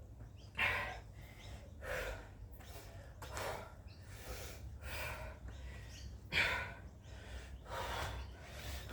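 A person breathing hard through the mouth, in quick gasping breaths about once a second, out of breath from exercise.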